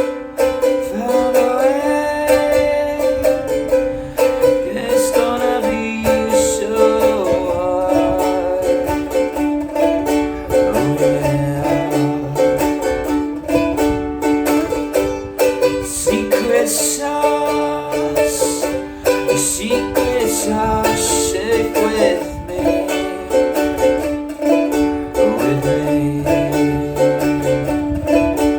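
Music: a plucked string instrument plays a repeating tune over a steady held low note.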